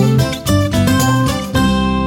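Background music: acoustic guitar picking and strumming a quick, rhythmic tune.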